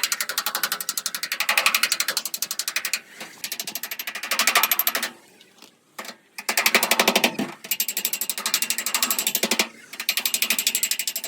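Rapid, evenly spaced mechanical clicking from a workshop tool, in several bursts, stopping briefly about five seconds in before starting again.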